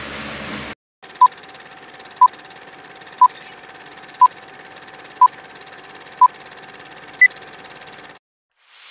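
Film-leader countdown sound effect: short beeps exactly once a second over a steady hiss, six at one pitch and a final seventh beep higher. It cuts to silence, and a rising swoosh starts right at the end.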